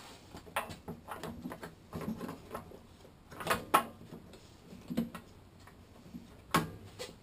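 Irregular clicks and knocks of a plastic gas tank being handled and fitted back onto a small mower engine, with a louder clatter a little past halfway and again near the end.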